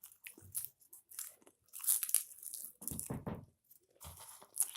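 Popcorn crunched and chewed in quick, irregular bites as it is eaten fast in an eating race.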